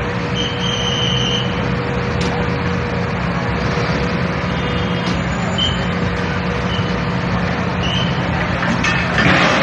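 Heavy vehicle engine running steadily under a noisy wash, with a few short high squeaks and a louder, noisier burst near the end.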